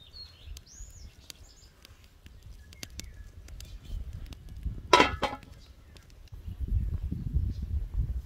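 Birds chirping and a wood fire crackling with small, sharp pops. About five seconds in comes a single loud, short call, and low rumbling noise near the end.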